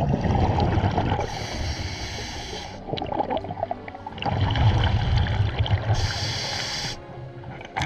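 Scuba diver breathing through a regulator underwater: two breath cycles, each a burst of exhaled bubbles rumbling and gurgling, followed by a hissing inhale through the regulator.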